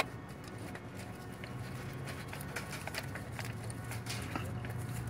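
Scattered light clicks and taps of metal parts as gloved hands work the fuel line fitting and filter housing at a carburetor's fuel inlet, with a low steady hum coming in about one and a half seconds in.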